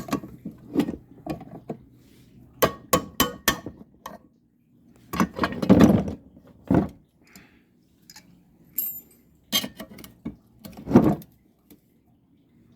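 Metal hand tools and sockets clinking and clattering as they are handled and sorted through, with a run of quick clinks a few seconds in and several heavier knocks later.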